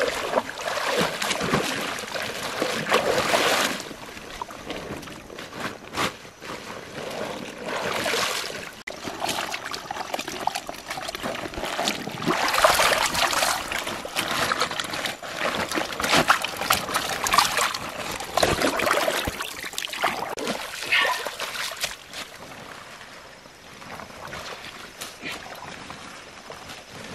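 Shallow stream water splashing and sloshing as a woven plastic sack is swished and dipped through it, in irregular bursts. Quieter near the end, once the work moves out of the water.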